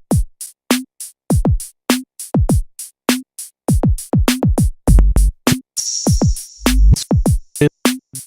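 Drum-machine beat from a Native Instruments Maschine Studio: deep kicks that drop sharply in pitch, crisp ticking hits and a snare, in a steady loop. About five seconds in, low bass notes join the pattern.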